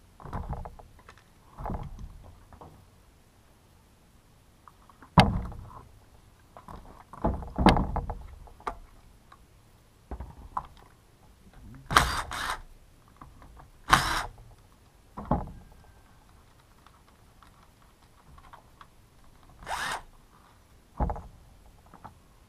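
Irregular knocks, clicks and rattles of a Husqvarna T435 top-handle chainsaw's parts and hand tools being handled during disassembly, about a dozen of them a second or several apart.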